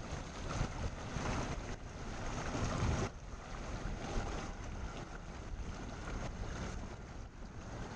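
Wind buffeting the microphone over choppy open water, with the low rumble of a boat under it. The sound drops a little about three seconds in.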